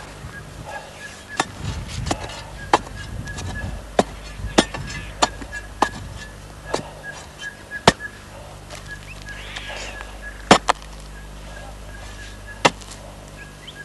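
Sharp knocks of a digging tool striking into the trunk and roots of a bush. The knocks come roughly every half second at first, then fewer and farther apart after about eight seconds, over a low steady hum.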